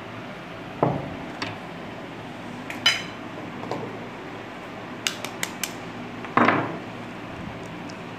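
Glass and ceramic kitchen bowls knocking and clinking against each other and the tabletop as they are handled. There are about eight separate knocks, one bright ringing clink, and a quick run of sharp clicks. The loudest knock comes about six and a half seconds in.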